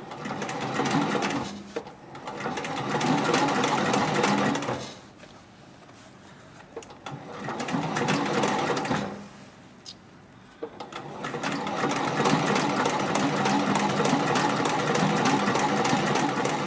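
Heavy-duty 204-102 MD decorative-stitch upholstery and leather sewing machine stitching in short runs with a rapid, even rhythm. It stops twice for a second or two, then runs steadily through the second half.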